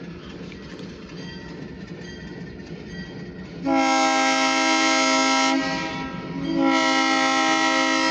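Alco S2 diesel switcher locomotive approaching with a steady rumble, then sounding its air horn in two long blasts, the first starting about three and a half seconds in and lasting nearly two seconds, the second a second later and still sounding at the end.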